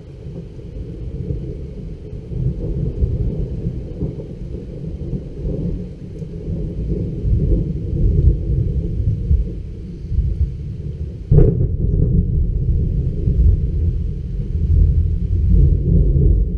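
Thunder from a lightning strike about 4.3 km away: a low rolling rumble that swells over the first few seconds and keeps rolling, with a sharper clap about eleven seconds in.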